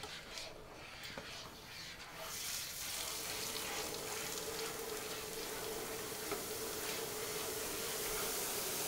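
Liquid nitrogen being poured from a dewar into a steel bowl of ice cream mix, boiling off with a steady hiss and sizzle that starts about two seconds in and builds. A steady low tone runs under it, and a spoon scrapes and stirs in the bowl.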